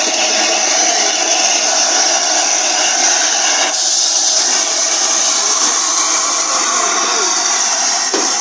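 Steam hissing steadily and loudly from an LNER A4 Pacific steam locomotive, a continuous rushing hiss with a slight change in tone a little under halfway through.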